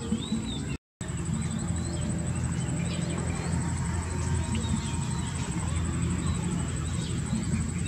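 Outdoor ambience: many short bird chirps over a steady low rumble, with a constant thin high-pitched whine. The sound cuts out completely for a moment about a second in.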